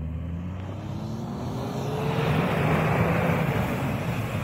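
Toyota Land Cruiser 100's 4.2-litre straight-six diesel revving under load, its pitch rising over the first two seconds, while the tyres churn through deep snow with a rough hiss that swells around the middle.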